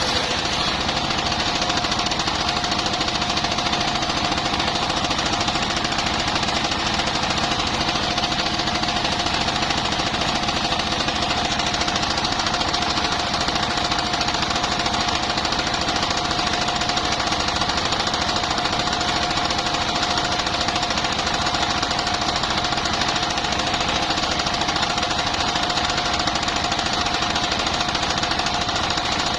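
Engine-driven circular sawmill running steadily: rapid, even engine firing with a steady high whine over it.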